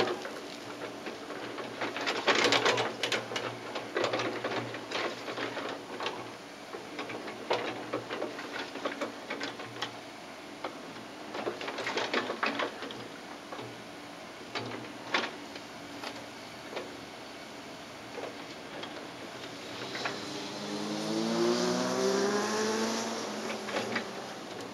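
Komatsu PC78MR-6 excavator's diesel engine running while the bucket digs in soil and stones, with several bursts of clattering stones and scraping. Near the end an engine revs up, its pitch rising for a few seconds.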